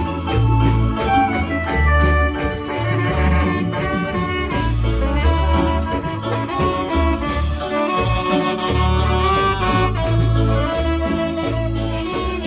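Music with a repeating bass line under a pitched melody.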